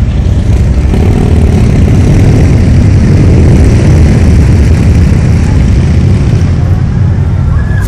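Motorcade vehicles passing on the street: a loud, low rumble of engines and tyres that swells to its loudest about three to four seconds in.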